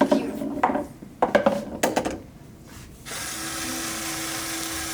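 A few sharp clacks, then about three seconds in a small electric motor starts and runs with a steady hum, driving a pulley and wheel-and-axle that release a grape.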